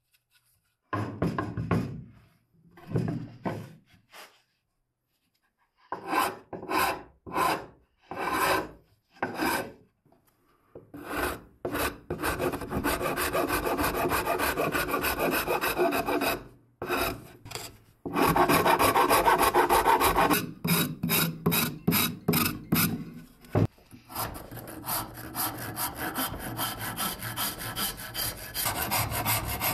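Hand rasp scraping along a wooden axe handle, shaping it. It starts in separate slow strokes with short gaps, then from about eleven seconds in runs into long stretches of quick back-and-forth strokes.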